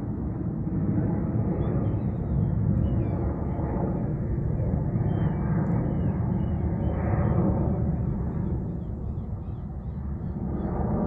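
Distant jet engines of a Boeing 737-800 airliner, a steady low rumble that swells and eases slightly as the plane climbs away after takeoff.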